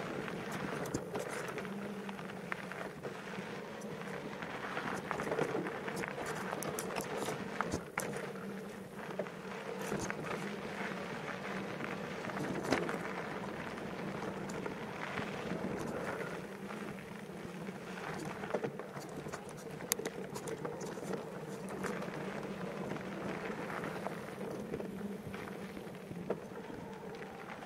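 Mountain bike rolling along a dirt forest singletrack: steady tyre noise on the trail with a low hum, and frequent rattles and knocks as the bike goes over roots and bumps.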